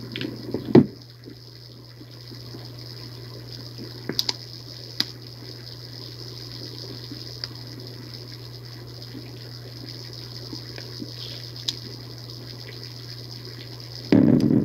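Sound picked up by a microphone lowered about 25 to 30 m down a borehole: a steady low hum and a water-like rushing, with a few sharp clicks and a loud burst of noise near the end. The recordists take such borehole sounds for tunnelling.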